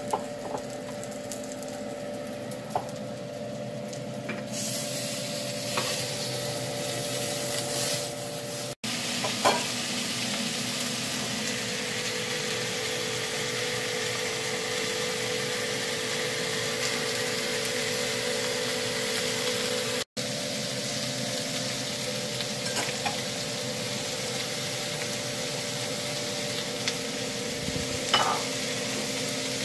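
Lamb chops, and later sliced onions, sizzling in hot oil in a non-stick frying pan: a steady hiss that starts about four seconds in, with a few light clicks of a utensil against the pan. A steady low hum runs underneath.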